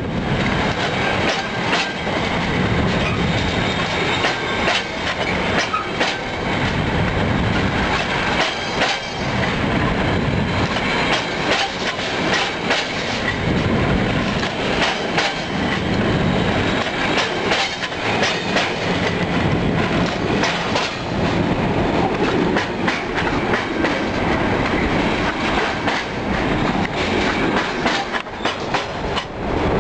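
Freight train wagons rolling past close by, with a constant rumble and many sharp, irregular knocks as their wheels clatter over a bolted rail joint that rests on a rotted wooden sleeper.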